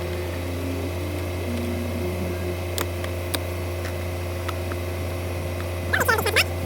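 Toyota pickup's engine idling, heard from inside the cabin as a steady low hum. There are a few faint clicks, and a brief squeaking comes about six seconds in.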